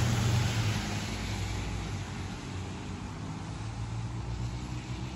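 Low, steady hum of a vehicle engine, with a broad rush of noise that fades away over the first two seconds.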